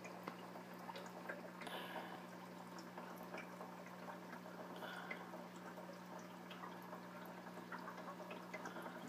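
Aquarium water faintly bubbling and trickling, with scattered small drips, over a steady low hum.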